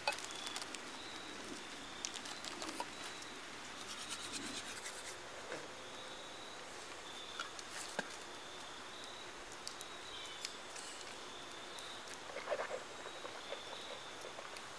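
Toothbrush scrubbing teeth: faint, intermittent scratchy rasping, with a few small clicks and rustles.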